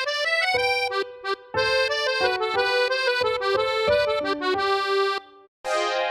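Huawei MatePad 11.5 ringtone: a short instrumental melody of quick notes that stops about five seconds in. After a brief gap, a different ringtone starts just before the end.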